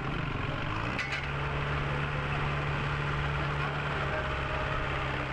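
A vehicle engine running: its pitch rises over the first second, then holds a steady hum, with a short click about a second in over street noise.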